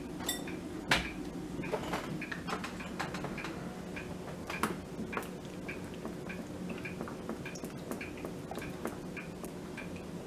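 Lemon juice squeezed from a plastic squeeze bottle into a small measuring cup: faint, scattered clicks and ticks, several a second, over a steady low hum.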